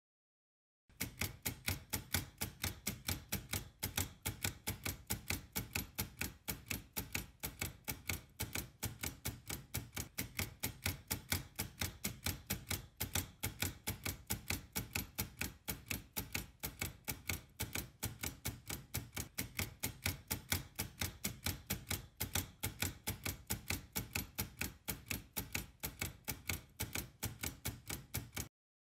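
Daisy-wheel electric typewriter mechanism clicking in a fast, steady, machine-regular rhythm. It starts about a second in and stops abruptly near the end.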